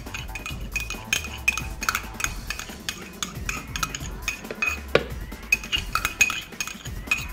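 Metal spoon scraping and clinking against a ceramic cup, a quick run of light clinks with a short ring, as melted butter is scraped out of the cup.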